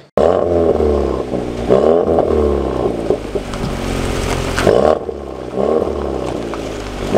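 Volkswagen Golf 8R's turbocharged 2.0-litre four-cylinder revved several times while standing, the pitch climbing and falling with each blip, through its MG Motorsport aftermarket exhaust.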